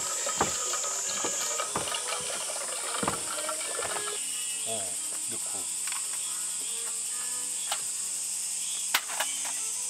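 A steady, high-pitched insect chorus with scattered clicks and knocks of handling in the first few seconds and one sharp click about nine seconds in.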